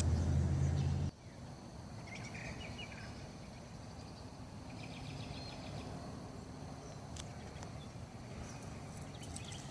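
Outdoor ambience with birds chirping, a short rapid trill of calls near the middle. It is preceded by a steady low hum that cuts off abruptly about a second in.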